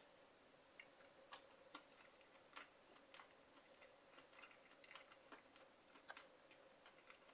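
Near silence with faint, irregular wet clicks and smacks of someone chewing a mouthful of grilled eel, over a thin steady hum.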